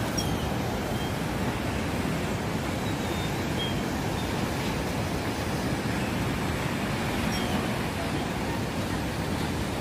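Steady rushing of breaking waves and whitewater in an artificial wave pool.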